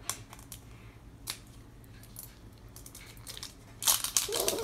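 Plastic wrapping crinkling and tearing as it is pulled off a small toy capsule. There are scattered crackles, then a louder burst of crinkling about four seconds in.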